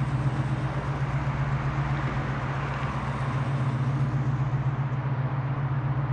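A car engine idling, a steady low drone with no change in pitch.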